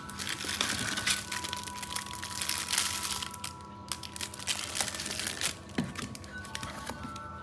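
Clear plastic packaging bags crinkling as they are pulled out of a cardboard box. The crinkling is dense for the first few seconds, then eases to lighter rustling and a few small knocks.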